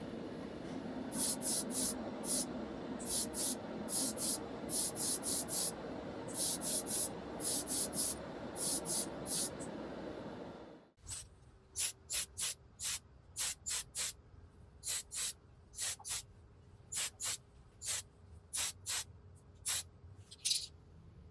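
Spray paint going on in many short, quick hissing bursts. A steady background noise underneath stops abruptly about halfway through, and the bursts carry on over a quieter background.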